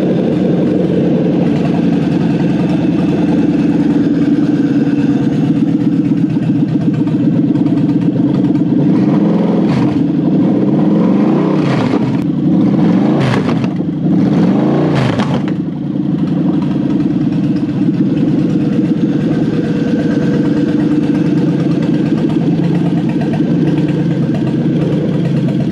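Toyota 1UZ-FE V8 engine running on a test stand under a newly wired Link ECU loom, idling steadily, with the throttle blipped several times between about nine and sixteen seconds in, pitch rising and falling each time before settling back to idle.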